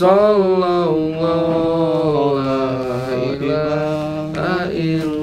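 A man's voice chanting in long, slowly wavering held notes, with a new phrase beginning about four seconds in.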